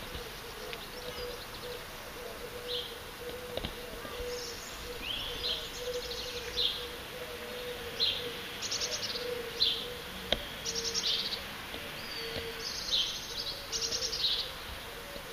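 Garden songbirds chirping and singing in short trilled phrases, repeated every second or so, over a faint steady hum.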